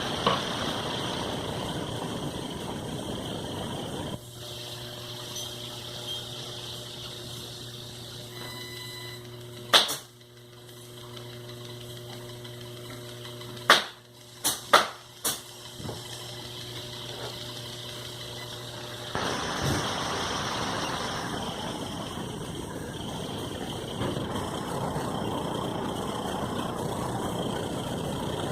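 Small electric motor running with a steady mechanical hum, a few sharp knocks in the middle, and a rougher, noisier running for the first few seconds and again from about two-thirds of the way through.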